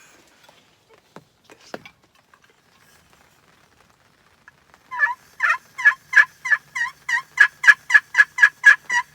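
A run of about fourteen turkey yelps, evenly spaced at about three a second, beginning about five seconds in and growing louder.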